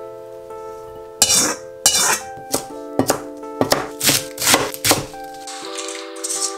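Background music with a sustained tune, over about eight sharp kitchen knocks and clanks from a cleaver chopping cabbage on a board and a wok with its utensils, and a brief high hiss near the end.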